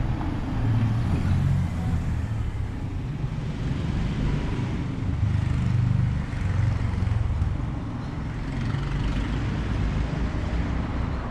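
Low, uneven rumble of motor vehicle noise that swells and fades, with a faint hiss above it.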